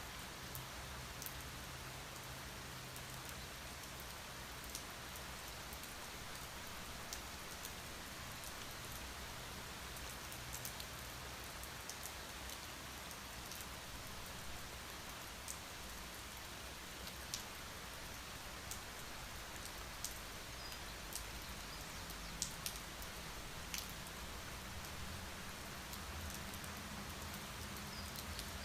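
Steady rain falling, with individual drops landing as scattered sharp ticks over the even hiss.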